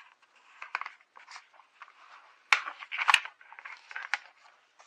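Scissors cutting paper: several sharp snips with paper rustling between them, the loudest snips a little past halfway.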